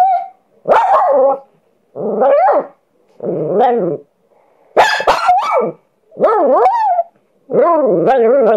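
Dog giving a series of six short barking calls, each bending up and down in pitch, about one every second and a half: the dog protesting at being teased.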